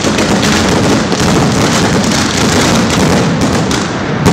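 Correfoc fireworks spraying sparks: loud, continuous crackling made of many rapid pops.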